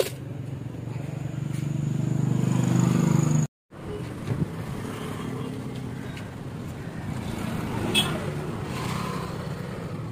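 A car engine running steadily, with a brief dropout about three and a half seconds in and one sharp knock near eight seconds.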